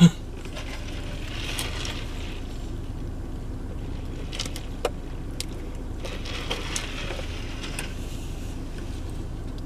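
Steady low rumble inside a car cabin, with the engine idling and the heater running, and a few faint clicks and rustles from handling food packaging.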